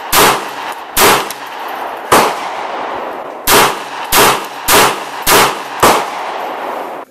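Eight shots from a 9x18 Makarov semi-automatic pistol, each followed by a ringing echo: three spaced about a second apart, then after a short pause five quicker ones about half a second apart.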